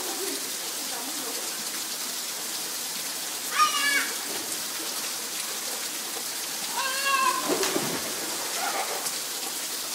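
Steady rain falling, an even hiss throughout, with two short high-pitched cries about a third and two thirds of the way in.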